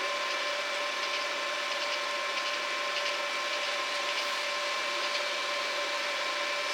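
Stick (SMAW) welding arc burning steadily on stainless steel: an even crackling hiss with a constant high whine over it.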